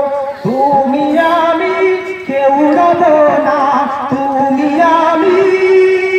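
Man singing a Bangla Islamic gajal into a microphone, drawing out ornamented, gliding notes and settling into a long held note near the end.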